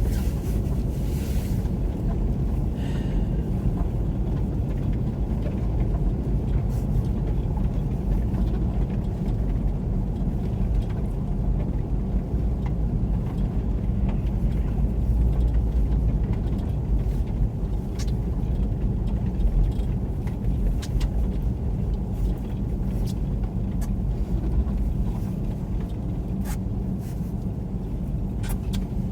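Steady low rumble of a car driving slowly on a snow-covered road, heard from inside the car: the engine and tyres on the snow. A few faint ticks come through at irregular times.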